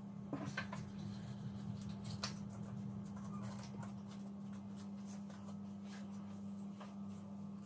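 Paper crinkling and tapping as a sheet of origami paper is handled and creased by hand, with a few sharper clicks about half a second and two seconds in, over a steady low hum.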